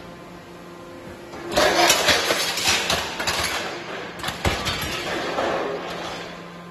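550 tiger-head (alligator) hydraulic scrap shear closing on a load of scrap metal: loud crunching and cracking of crushed, cut metal for about four seconds, with one sharp crack past the middle. The steady hum of the hydraulic power unit runs underneath.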